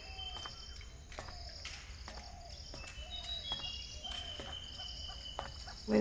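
Tropical ambience of insects trilling in repeated high pulsing bursts, with short high whistle-like bird notes and fainter lower calls in between.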